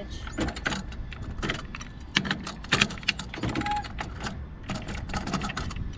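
A catamaran's bedded window being worked loose from its sealant: a quick, irregular run of scrapes and creaks, about two or three a second, with a short squeak about halfway through.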